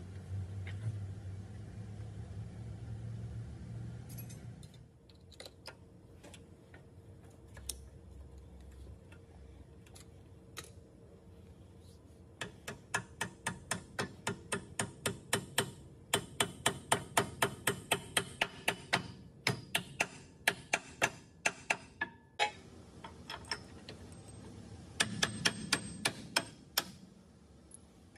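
Hand ratchet wrench clicking in quick, even ticks, about three to four a second, as it is worked on a bolt at the walking beam's end bushing, with a second short run of clicks near the end. A low hum fills the first four seconds.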